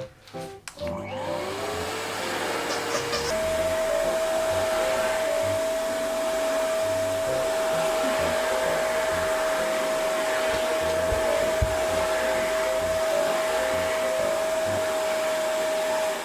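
YINO life L1 pet grooming vacuum running with a steady whine over rushing air. It drops out briefly at the start, spins back up with a rising whine, and steps up to a higher pitch, a higher power setting, about three seconds in, then runs steadily until it cuts off at the end.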